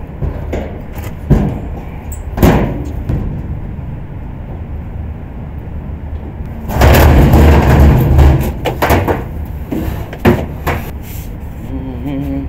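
Knocks and clanks of a rooftop exhaust fan's sheet-metal hood being unlatched and swung open, with a louder scraping rush of metal about seven seconds in.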